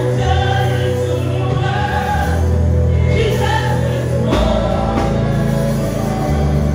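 Live gospel praise-and-worship music: a woman singing into a microphone over a band of electric bass, keyboard and drums, with the bass holding long notes that change a few times.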